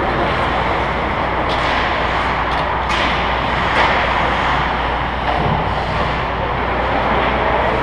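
Steady hiss and hum of an indoor ice hockey rink, with a few faint distant clacks from play at the far end.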